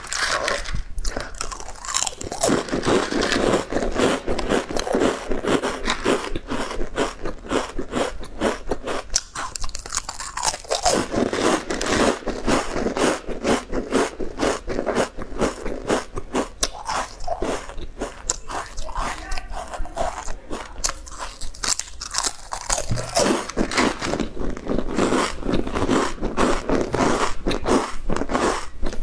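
Crunching and chewing of thick ridged potato chips bitten from hand-held stacks, a rapid, unbroken run of crisp crunches.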